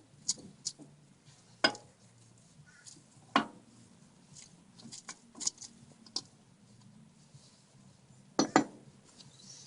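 Metal-on-metal clicks and clanks of the exposed gears in a Case 580CK backhoe transmission being moved by hand with the shift cover off. Scattered sharp knocks, the loudest a little under two seconds in, about three and a half seconds in, and a quick double clank near the end.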